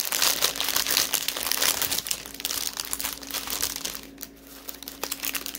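Small plastic bags of diamond-painting rhinestones crinkling as they are handled, with a brief lull about four seconds in.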